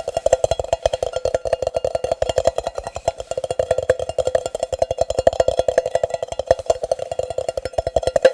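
Rapid fast tapping with fingers or nails on a hollow object that rings with a steady pitched tone, many taps a second.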